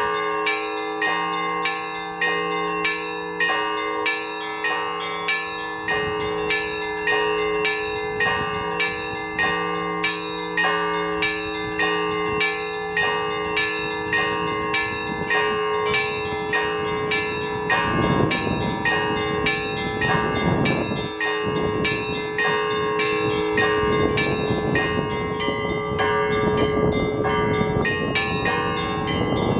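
Orthodox church bells rung by hand in a steady, regular rhythm of strikes, the smaller bells' notes ringing over the sustained hum of the larger ones. From a little past halfway, strong gusts of wind buffet the microphone with a rough rumble under the bells.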